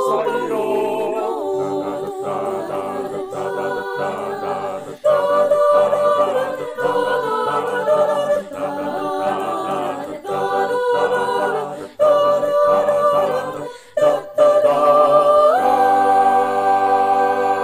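Mixed-voice virtual choir of sopranos, altos, tenors and basses singing a cappella in harmony, in short phrases broken by brief pauses. Near the end the voices settle on one long held chord.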